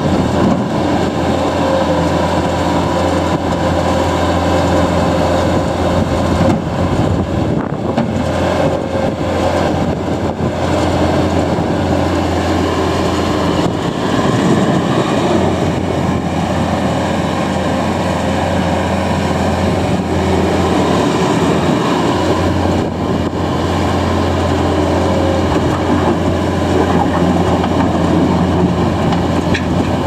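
Bobcat S630 skid steer loader's diesel engine running steadily under load while the machine is driven and its lift arms and bucket are worked.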